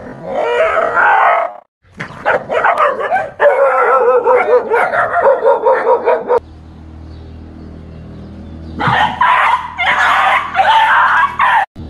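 Dogs barking and yelping in a run of short clips, each breaking off abruptly. About halfway through there is a quieter stretch with a low steady hum before the barking resumes.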